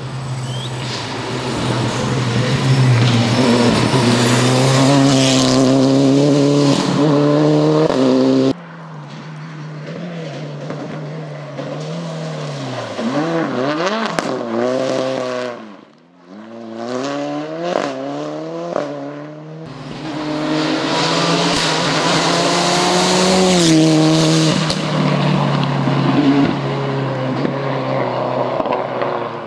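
Rally cars at full throttle on a tarmac stage, engines climbing in pitch through the gears with a short break at each shift. In the middle a car's engine note drops and then climbs again as it slows for a corner and accelerates away. The sound jumps abruptly twice, about 8 and 20 seconds in, as it changes from car to car.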